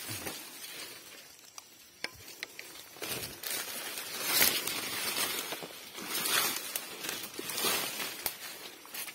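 Leaves and brush rustling as someone pushes on foot through dense undergrowth, in uneven swells that are loudest in the middle, with a few small snaps about two seconds in.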